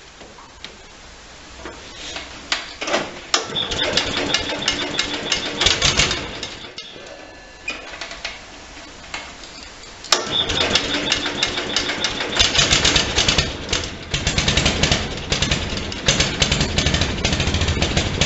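Cold start of a Farm King MTD 990's Briggs & Stratton 16 hp cast-iron single-cylinder engine. A first burst of uneven firing from about two seconds in falls away, then about ten seconds in the engine catches and keeps running with a rapid, uneven beat.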